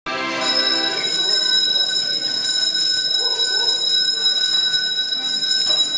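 Accordion holding a steady, sustained chord from just after the start, with people's voices over it.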